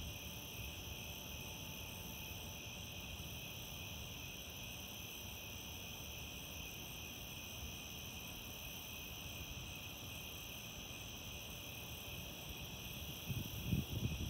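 Steady, unbroken chirring of crickets and other night insects, layered in several high pitches. Near the end come a few brief low bumps of noise.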